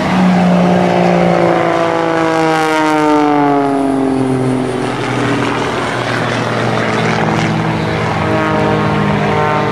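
Christen Eagle aerobatic biplane's propeller engine at high power, its pitch falling steadily over the first few seconds as it passes close by, then running on at a steadier note.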